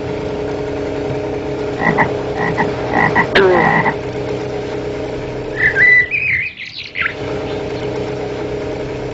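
A steady, even motor hum with animal calls over it: a run of short high calls about two to four seconds in, then a wavering high call around six seconds in.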